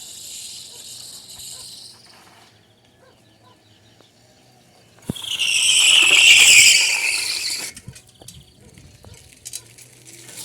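Bicycle tyre squealing in a skid for about two and a half seconds, starting about halfway in; it is a weak squeal. Crickets chirp at the start.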